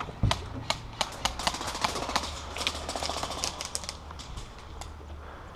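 Airsoft guns firing, heard as scattered sharp clicks and snaps at an irregular pace.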